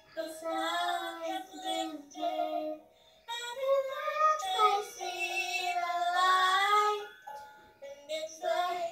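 Young girl singing a song to herself in long, drawn-out notes. She pauses briefly about three seconds in, then picks the tune up again.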